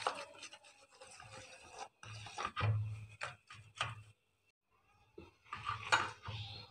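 A bare hand mixing and squishing soft butter, sugar and egg batter against a stainless steel bowl: irregular rubbing, scraping strokes that pause for about a second midway.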